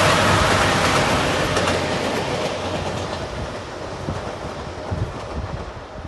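A JR Shikoku 2700-series diesel express train passing at speed, its engine and wheel noise fading as the last car goes by and the train moves away. A few sharp wheel knocks come in the second half.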